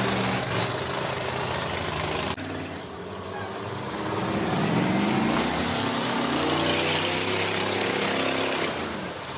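School bus engines running and revving at a demolition derby, their pitch rising and falling, with an abrupt break about two and a half seconds in.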